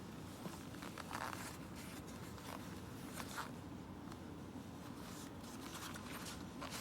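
Short scratchy rustles and scrapes of something being handled, scattered a second or two apart, over a steady low hum.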